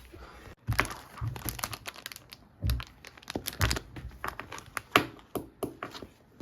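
Irregular crinkling and handling noise with many sharp clicks and a few soft thumps.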